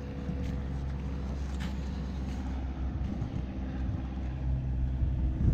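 Wind buffeting the microphone outdoors, a steady low rumble.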